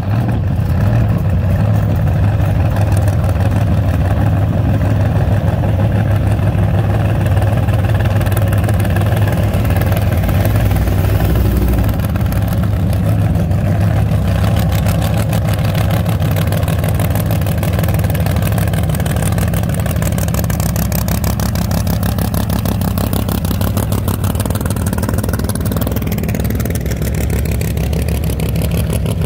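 Classic cars driving slowly past one after another, their engines running with a deep, steady exhaust rumble.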